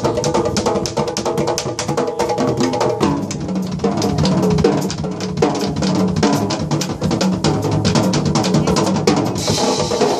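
Live jazz band playing, led by a drum kit and Uruguayan candombe hand drums (tambores) beating a dense, rapid rhythm, with a pitched melody line over them. A cymbal crash comes in near the end.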